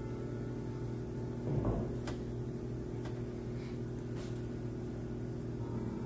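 Steady low electrical hum of equipment, with a brief bump about one and a half seconds in and a few faint clicks.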